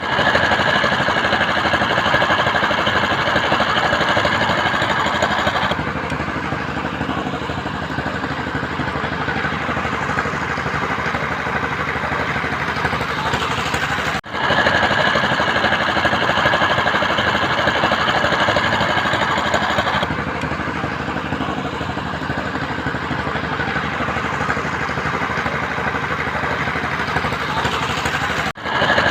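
Heavy construction machinery engine running steadily with a high whine, louder for about six seconds and then easing off. After a brief dropout about halfway through, the same stretch repeats.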